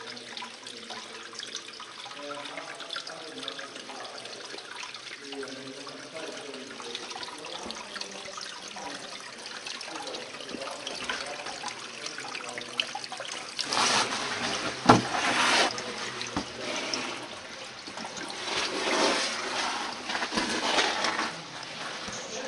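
Water trickling and dripping down wet rock inside a slot cave, a steady running sound. Faint distant voices can be heard in the first third. Louder bursts of noise come in the second half, with a sharp click about fifteen seconds in.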